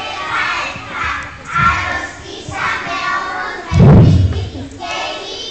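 Indistinct chatter of many young schoolchildren, with one loud, low thud a little under four seconds in.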